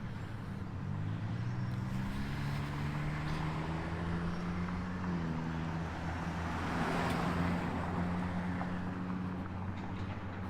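Motor traffic: a vehicle engine's hum rising in pitch and then holding steady, with another vehicle passing about seven seconds in.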